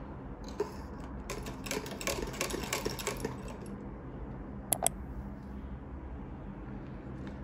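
Stainless steel straw pushed down through the plastic lid of an iced coffee, clinking and rattling against the ice cubes for about two seconds. Two sharp clicks follow a little later, over a steady low hum.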